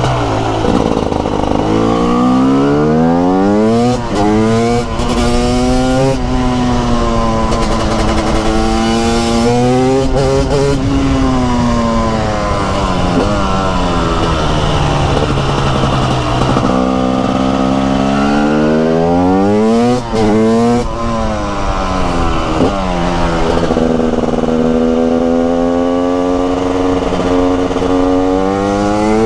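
2021 TM SMR 300 single-cylinder two-stroke supermoto engine revving hard through the gears. The pitch climbs steadily on each pull, then drops sharply at each gear change or when the throttle is closed, about seven or eight times.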